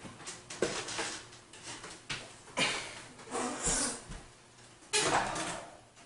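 Irregular knocks, scrapes and rustles of computer hardware being moved about and set down on a wooden table, with a few sharper clatters about two and a half, three and a half and five seconds in.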